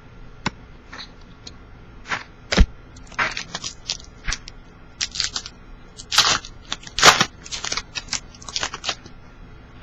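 Trading cards and a foil pack wrapper being handled and opened: an irregular string of short rustles, snaps and crinkles, the loudest a couple of seconds in and again past the middle.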